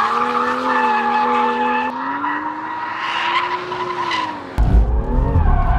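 BMW M2 drifting: its tyres squeal in a long, wavering howl over the engine note, which rises slowly. About four and a half seconds in, a loud, deep engine rumble takes over.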